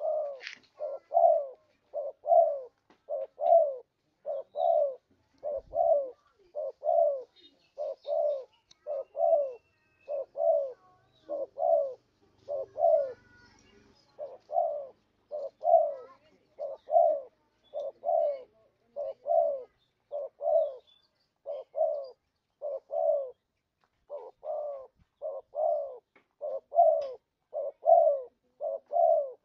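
Spotted dove cooing: a long, even run of short low coos, about two a second, with one brief break late on.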